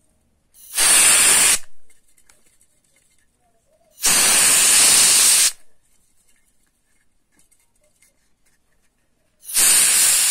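Canned-air duster sprayed into a laptop's side fan vent in three short blasts, each a hiss lasting a second or so, with the middle one longest. It is blowing out dust clogging the fan, the cause of the laptop's fan error.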